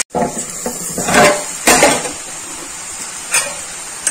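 A utensil clattering against a pan of frying potatoes, twice in the first two seconds, then two short taps near the end, over a faint steady sizzle.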